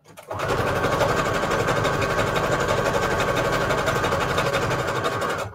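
Electric sewing machine stitching strips of scrapbook paper together. It runs at a steady fast pace for about five seconds, starting just after the beginning and stopping abruptly near the end.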